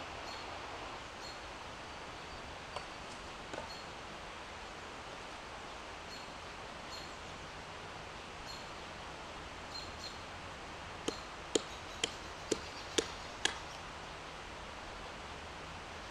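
Six sharp knocks about half a second apart, a little past two-thirds of the way in: wood being struck on a wooden chopping stump. Under them a steady rushing hiss, with faint high peeps recurring now and then.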